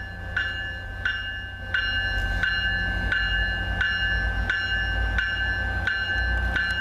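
Bell of an approaching MBTA commuter rail train ringing steadily, about three strikes every two seconds, over the low rumble of the train, which grows louder about two seconds in.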